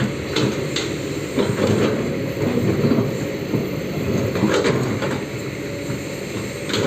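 Heavy diesel machinery, an excavator, running steadily with a low rumble, and several short metallic clanks scattered through it.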